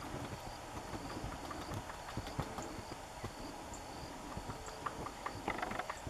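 White-fronted woodpecker pecking: irregular light taps and clicks over a low wind rumble, growing into a denser clatter near the end.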